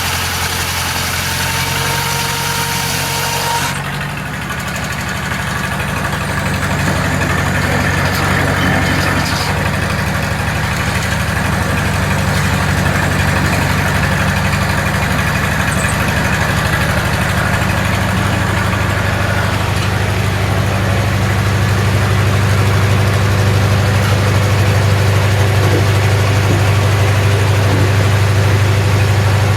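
Engine driving a Corley sawmill, running steadily. About four seconds in, a high hissing noise stops suddenly, and the engine then slowly gets louder.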